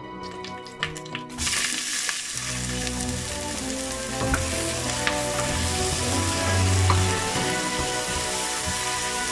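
Chopped red onion hitting hot oil in a pot, sizzling suddenly about a second in and then frying steadily while it is stirred with a wooden spoon. Background music plays under it.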